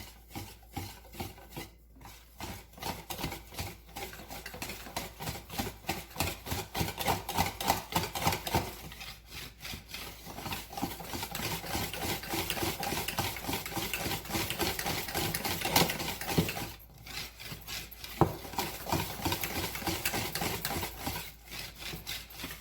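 Thick pancake batter being mixed in a bowl: rapid, rhythmic scraping and stirring strokes as the flour is worked in. The sound grows louder a few seconds in and pauses briefly twice near the end.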